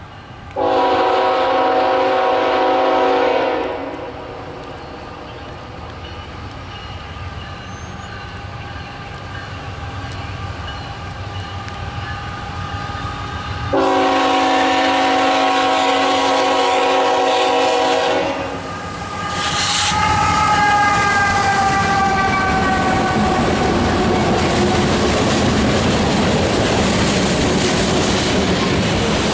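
Locomotive multi-chime air horn sounding two long blasts about ten seconds apart as a train approaches. The train then rolls past with steady wheel clatter on the rails and tones that fall in pitch as it goes by.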